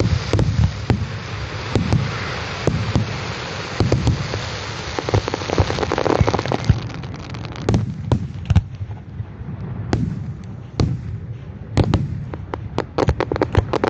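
Fireworks going off: low booms under a dense crackling hiss for the first half, then a rapid run of sharp separate bangs and pops, coming thick and fast near the end.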